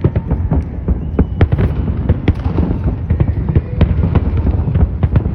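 Fireworks going off in a dense, rapid string of sharp bangs and crackles, several a second, over a constant low rumble.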